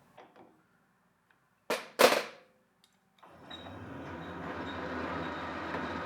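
Two sharp knocks about two seconds in, then a metal lathe starting up about three seconds in and running steadily with a low motor hum.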